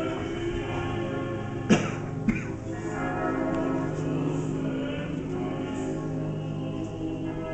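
Church bells ringing steadily, a dense wash of overlapping bell tones, with two sharp knocks close together about two seconds in.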